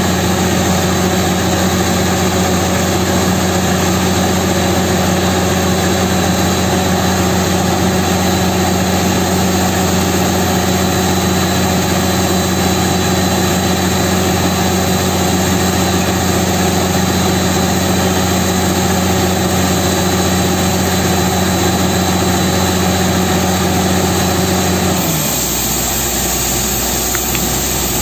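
Truck-mounted borewell drilling rig running steadily at work, its diesel engine and air compressor giving a loud, even note while compressed air blows spray and cuttings up out of the borehole. About 25 s in, the engine note drops lower and stays there.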